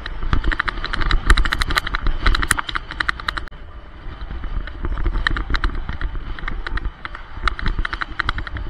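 Kick scooter rolling over rough, cracked street pavement, its deck and wheels rattling in irregular clusters of sharp clicks over a steady low rumble of road and wind on the helmet camera's microphone. The rattling eases off for about a second and a half in the middle.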